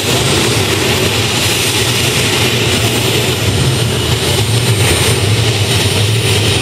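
Isotov TV3-117 helicopter turboshaft engine of a pulling tractor running steadily while it stands at the start line: an even jet-like rush with a thin, steady high whine and a low hum underneath.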